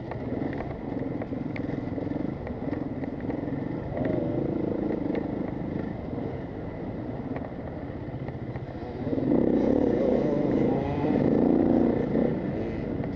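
Enduro motorcycle engine running under load and revving up and down, growing louder from about nine seconds in, with a few sharp knocks and rattles from the bike.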